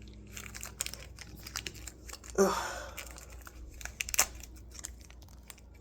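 Small plastic toy parts and their plastic packaging being handled: scattered light clicks and crinkling, with a louder rustle about two and a half seconds in.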